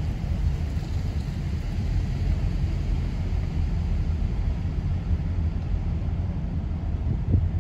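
Steady low rumble of a car's cabin while driving slowly, the road and engine noise heard from inside. A brief thump near the end.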